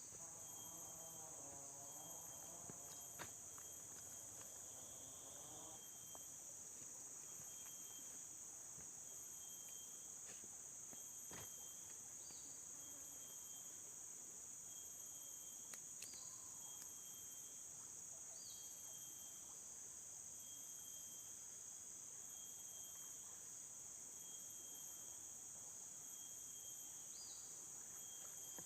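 Steady high-pitched chorus of insects, with a faint repeating chirp over it. A few soft clicks sound through it.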